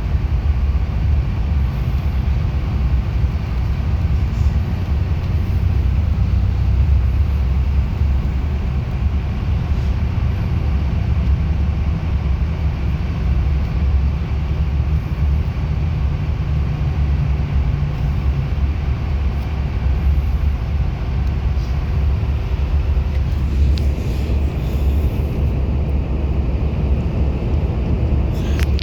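Bus engine and road noise from inside the cabin while driving: a steady low rumble, with a slightly higher engine hum rising out of it for several seconds midway.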